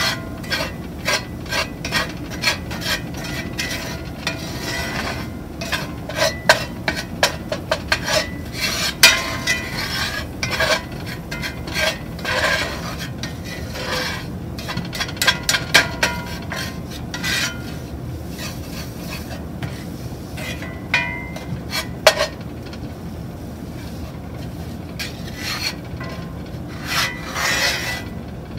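A spatula scraping and pushing a thick, pasty flour-and-oil roux around a cast-iron skillet in quick, irregular strokes, with sharper clicks where it hits the pan. The roux is being cooked and browned. The strokes thin out for a while past the middle, then pick up again near the end.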